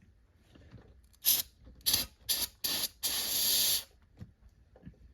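Aerosol can of brake cleaner spraying: four short bursts, then one longer burst of about a second.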